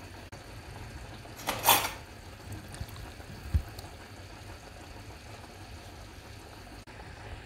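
Pieces of peeled yam dropped into a pot of water, with one short splash about a second and a half in and a dull knock against the pot a couple of seconds later, over a steady low hum.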